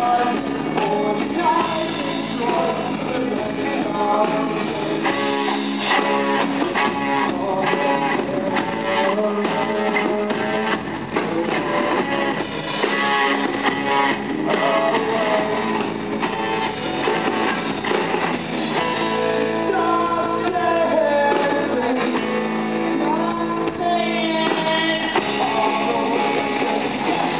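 Rock band playing live: a singer over strummed guitars and a steady beat.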